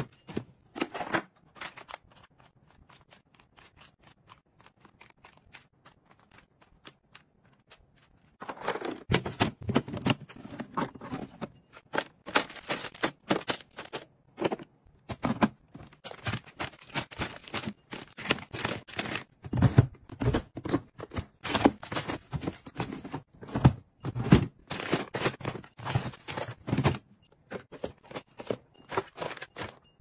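Packaged ice cream and clear plastic storage bins being handled and set onto freezer shelves: a run of clicks, knocks and rattles of plastic and cardboard, sparse at first, then dense and louder from about eight seconds in until near the end.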